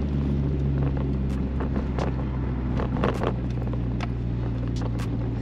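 Turbocharged 1.6-litre Nissan Sentra B13 engine running steadily while driving, heard from inside the cabin, with a few light clicks over the engine hum. The car is running on a newly installed speed-density setup with no MAF sensor and is not yet tuned.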